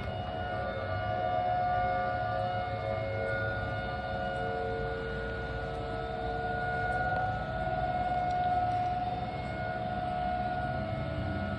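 Outdoor tornado warning siren sounding a long, steady tone, with a slight shift in pitch partway through.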